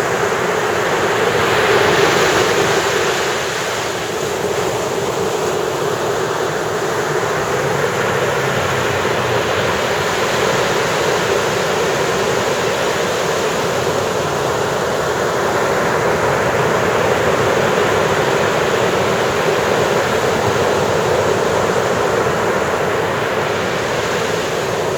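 Ocean waves breaking and washing on the shore in a continuous rushing surf, with one wave swelling louder about two seconds in.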